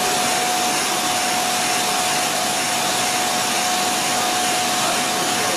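NJP-series automatic capsule filling machine running: a steady, loud hiss with a steady mid-pitched whine through it.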